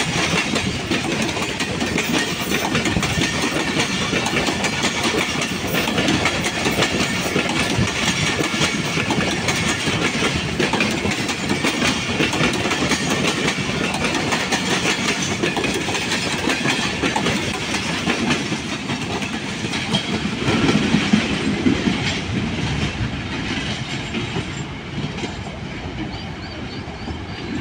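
Pakistan Railways passenger coaches running through the station at speed, a steady noise of steel wheels on the rails with many quick clicks, easing off somewhat in the last few seconds.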